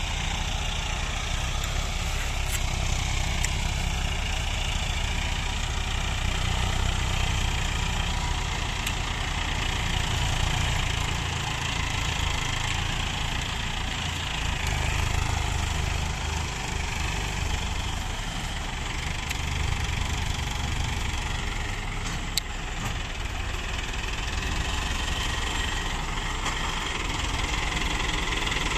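Mahindra Arjun diesel tractor engine running steadily at close range, with a second tractor's engine running alongside. A single sharp click sounds about 22 seconds in.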